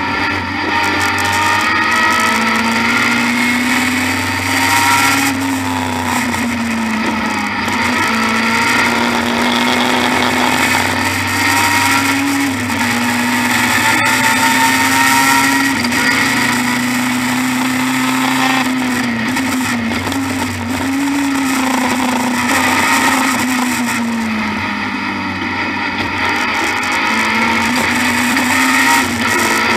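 BMW E30 M3 Group A race car's four-cylinder engine at racing speed, heard from inside the cabin. The engine note climbs through the revs and drops away at each gear change and under braking, several times over.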